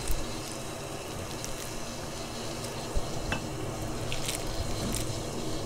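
Wet hands squeezing and shaping a ball of sticky vinegared sushi rice for nigiri, with soft squishing and a few small clicks, over a steady background hiss.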